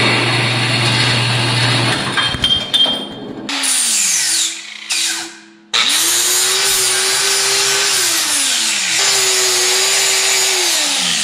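A metal-cutting bandsaw runs with a steady hum and stops about two seconds in; this is the saw that has given up on the cut. Then an angle grinder spins up and cuts steel tubing with loud grinding. It winds down about three-quarters of the way through, starts again and winds down near the end.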